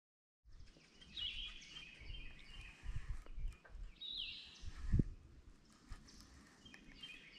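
Outdoor ambience with birds chirping now and then over an uneven low rumble on the microphone, and a single dull knock about five seconds in.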